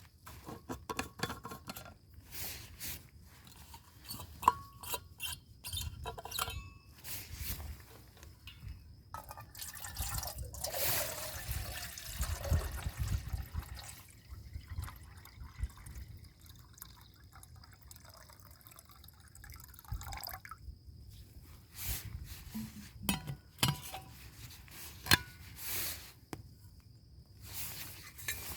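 Water dripping and pouring, with many scattered small clicks and knocks. About ten seconds in there is a longer steady rush of a few seconds.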